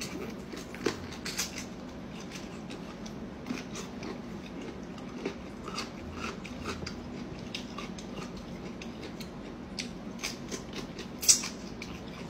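Eating and hand-peeling pickled bamboo shoots: scattered small crunches, clicks and wet snaps of chewing and of strips torn from the shoots, close up. One louder snap comes near the end, over a faint steady hum.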